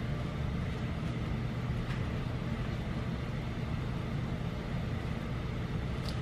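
Steady low hum of room noise with no distinct events.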